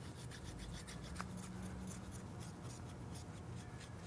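A 3D-printed plastic gem rubbed by hand on paper loaded with polishing compound, a faint scratchy rubbing in quick, even strokes, several a second. It is the final polishing stage, after wet sanding to 1200 grit, to bring the gem to a high gloss.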